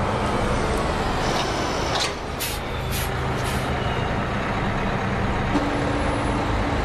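Bus engines idling with a steady low hum, with a few short, sharp sounds about two to three and a half seconds in.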